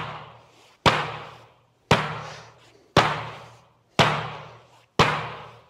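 Hammer-fist strikes, the bottom edge of the fist, landing on canvas bags filled with dried beans on a wooden table in iron palm conditioning: a sharp thud about once a second, five in all, each ringing on briefly in the room.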